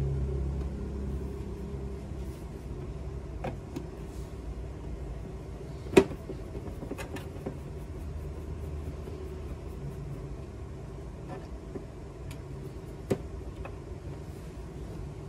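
Scattered sharp clicks and taps of a screwdriver working at the plastic casing of a Canon inkjet printer, the loudest about six seconds in, over a steady low rumble.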